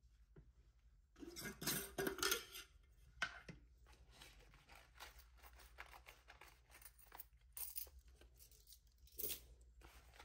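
Faint rustling and crinkling of paper bills as a wallet is emptied, with small clicks and clinks of coins. The busiest handling comes a little over a second in, with a sharper click about three seconds in and scattered light ticks after that.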